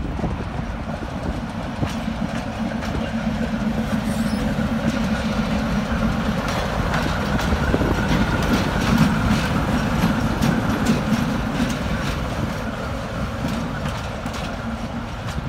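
ChME3 diesel shunting locomotive running light past at low speed: its six-cylinder diesel engine runs steadily, loudest about eight to ten seconds in, while its wheels click over the rail joints.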